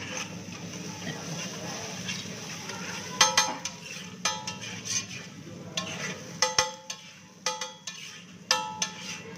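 Metal spatula chopping and scraping egg and green masala on a flat steel griddle, over a steady frying hiss. From about three seconds in, the spatula strikes the griddle in sharp, ringing clangs, irregularly once or twice a second.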